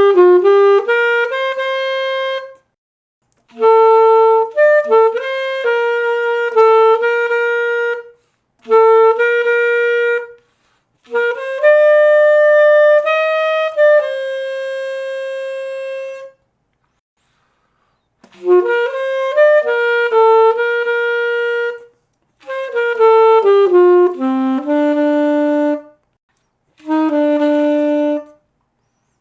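Selmer Paris Series III alto saxophone played solo and dry, with no effects: seven short melodic phrases separated by brief silences, one of them ending on a long held note about halfway through.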